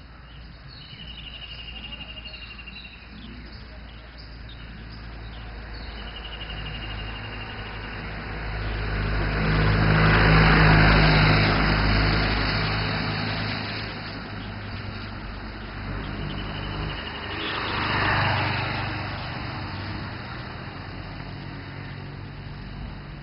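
A motor vehicle's engine passing by, growing louder to a peak about ten seconds in and fading away, then a second, smaller swell at around eighteen seconds.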